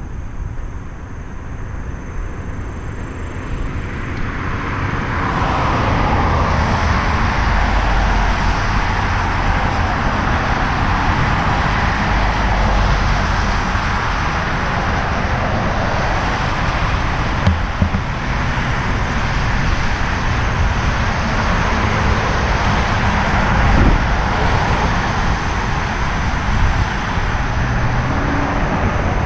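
Road traffic noise from cars passing on an adjacent road, heard together with low wind rumble on a helmet-mounted action camera while cycling; the traffic noise swells about five seconds in and stays steady. A couple of short knocks near the middle.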